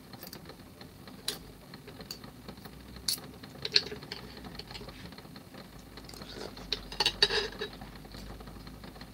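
Sparse light clicks and clinks of a metal utensil against a dish at the table, a few single taps and then a quick cluster about seven seconds in, with a brief soft mumble among them.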